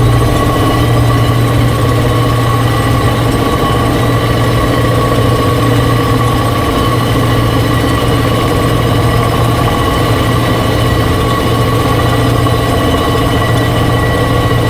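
A double worm gear drive turning among the running machinery of a hydroelectric power plant: a loud, steady hum with a steady higher whine above it.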